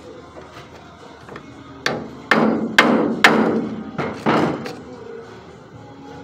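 A hammer striking metal: about six sharp blows over roughly three seconds, each ringing briefly.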